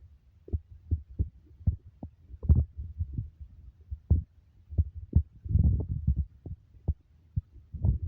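Muffled low thumps at an uneven pace, about one or two a second, with a longer run of rumbling knocks a little past the middle.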